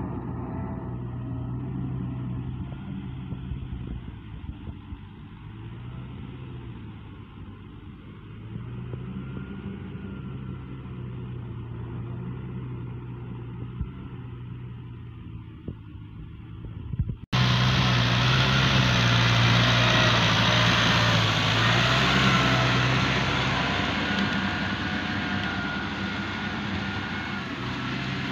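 Tractor diesel engine running steadily under load while pulling a rotary tiller through wet paddy mud. The engine is quieter and more distant at first, then after an abrupt cut about two-thirds of the way through it is much louder and closer.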